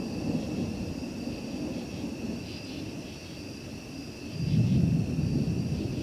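Thunder rolling in a low, continuous rumble that swells louder a little over four seconds in.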